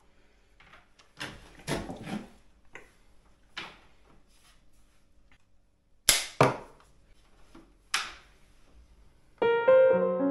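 Several short, sharp snips and rustles from ToughBuilt scissors cutting a door smoke seal strip, the loudest about six seconds in. Piano music comes in about a second before the end.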